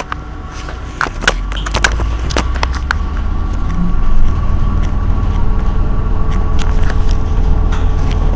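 Irizar i2e battery-electric bus standing at a stop, its electrical systems giving a steady high whine over a low hum that grows louder about a second in and again around four seconds. Scattered sharp clicks run throughout.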